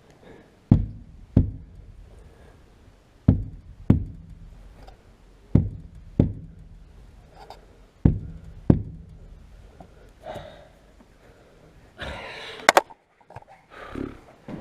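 Heavy knocks in pairs, four pairs about two and a half seconds apart, as the rear window glass and its rubber seal are struck to seat them in the body opening. A short rustle with a few sharp clicks follows near the end.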